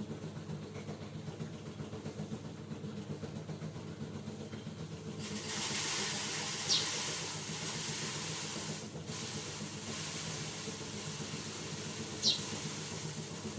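Steady low mechanical hum from a running motor, with a hiss that rises about five seconds in and drops away about four seconds later. Two brief high falling tones come a few seconds apart.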